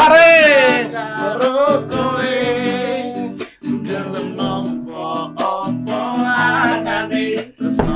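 A man singing a dangdut song with wavering vibrato over a strummed small acoustic guitar. The loudest part is a long held note at the start.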